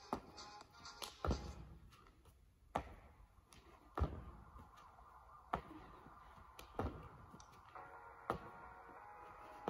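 Dull thuds of hands and feet landing on a rubber gym floor during donkey kick tuck jumps, about one every second and a half, seven in all.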